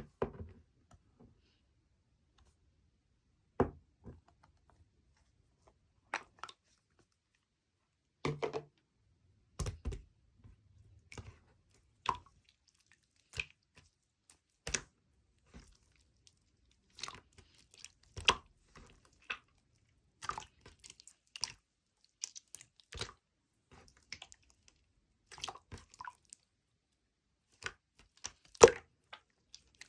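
Food being chewed and crunched: scattered short, crisp crunches with quiet gaps between, coming more often in the second half.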